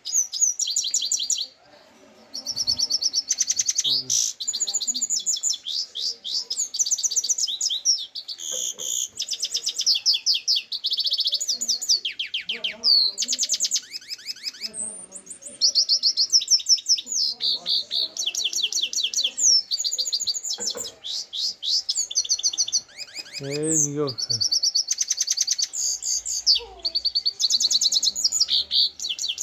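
European goldfinch singing: long runs of fast, high twittering and trills, broken by short pauses.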